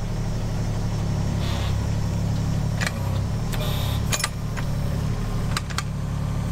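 Case CX17C mini-excavator's diesel engine running steadily under hydraulic load while it digs a trench, with about half a dozen sharp clanks from the working arm and bucket in the second half.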